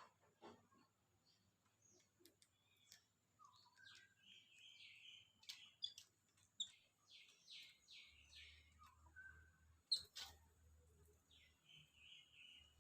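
Faint bird calls: short scratchy chattering notes, with a quick run of about five notes a second near the middle. Scattered clicks are heard among them, the loudest about ten seconds in.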